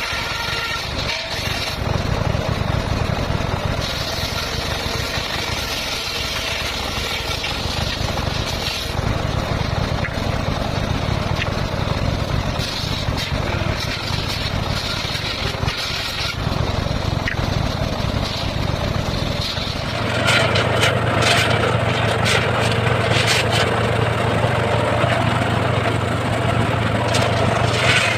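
Circular saw and its motor running steadily. About twenty seconds in it gets louder, with a steady low hum and a crackly noise on top.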